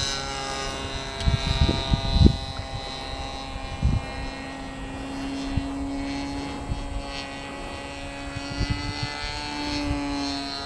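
Engine of a radio-controlled scale model Boeing P-26 Peashooter droning steadily in flight, an even high note with many overtones. A few short low thumps fall in the first four seconds.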